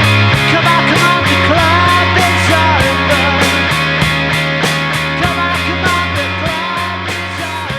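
Rock band playing an instrumental passage: guitars, bass and drums, with a lead line sliding up and down in pitch. The music grows quieter over the last few seconds.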